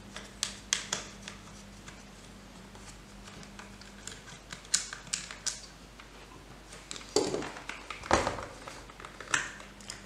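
Light irregular clicks and taps of a small Phillips screwdriver and the drone's plastic parts being handled during disassembly, with a few louder knocks of the plastic hull in the second half.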